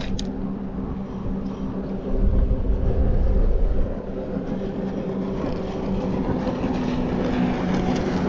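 Jet ski engine running steadily as it passes on open water, its hum growing a little louder toward the end. Wind buffets the microphone with a low rumble from about two to four seconds in.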